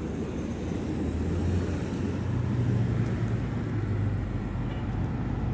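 Low, steady engine rumble that swells a little in the middle.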